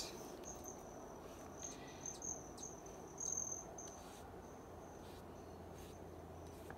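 A high, steady insect trill, swelling louder a few times, most strongly a little after three seconds in.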